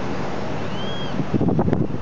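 Wind buffeting the microphone over a steady rumbling noise, with louder gusts in the second half. A short, high, arching chirp sounds near the middle.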